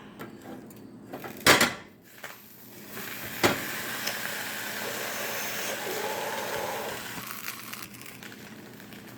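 Cookware clatter at a stovetop: a loud knock, then a sharp click followed by a few seconds of steady hissing that fades out.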